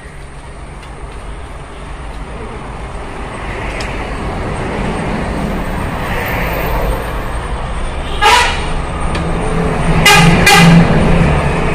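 A motor vehicle approaching, its engine and road noise growing steadily louder, sounding its horn: one short toot about eight seconds in, then two more toots close together near the end.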